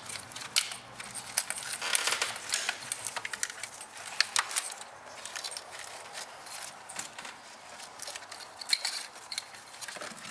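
Engine wiring harness being handled and pulled aside over the intake manifold: irregular plastic clicks, ticks and rustling from the harness and its clips.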